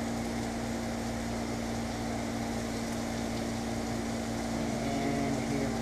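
Onions and salt pork frying in a skillet, a faint steady sizzle under a constant electric fan hum with a low steady tone.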